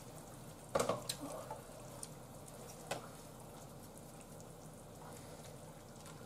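Cream stew simmering quietly in a saucepan while roux blocks are stirred in with chopsticks; a few light knocks and a rustle about a second in, and one more click near three seconds.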